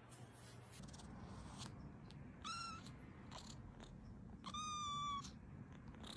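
A cat meowing twice: a short, high meow, then about two seconds later a longer, steadier one.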